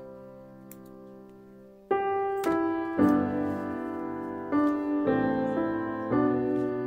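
Background piano music: a held chord fading away, then new chords struck about once a second from about two seconds in.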